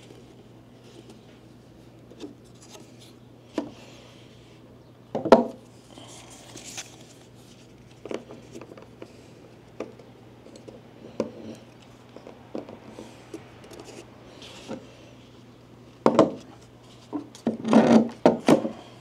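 Scattered knocks, taps and rubbing of objects being handled, with the loudest knock about five seconds in and a dense cluster near the end, over a faint steady low hum.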